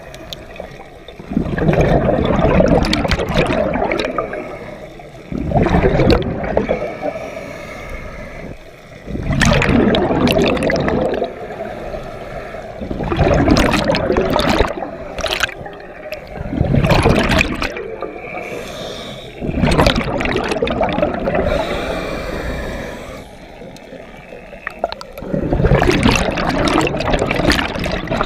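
Scuba diver breathing through a regulator underwater: about seven loud rushes of exhaled bubbles, one every three to four seconds, with quieter stretches between.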